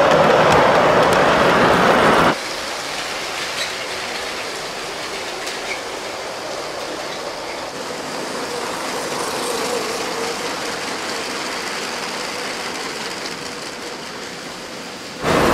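Large-scale model freight train rolling past on its track; about two seconds in this cuts off sharply to the quieter, steady running of LEGO trains on plastic track, with a faint motor whine.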